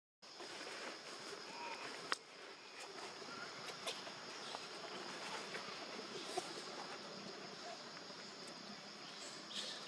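Steady high-pitched insect buzzing, with faint rustles and a sharp click about two seconds in.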